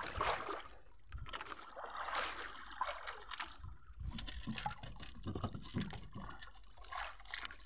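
Water sloshing and trickling against a small fishing boat's hull, faint and irregular, with a few small knocks.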